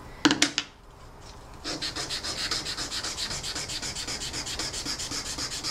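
400 grit sandpaper rubbed by hand over a small copper sheet on a wooden bench: a few rasping strokes, a short pause, then quick, even back-and-forth strokes. It is pre-sanding to take old scratches out of the metal before roll printing a texture into it.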